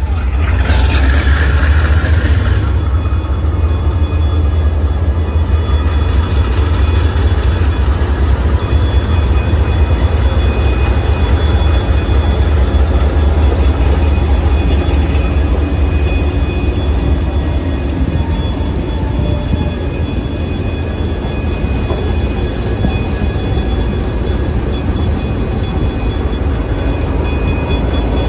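Pakistan Railways HGMU-30 diesel-electric locomotive running with a steady low engine rumble, a brief loud hiss about a second in, and a faint high squeal drifting slowly in pitch through the middle.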